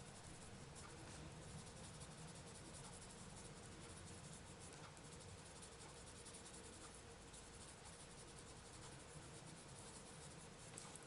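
Coloured pencil scratching faintly on paper in small, continuous shading strokes, with burnt ochre being layered on.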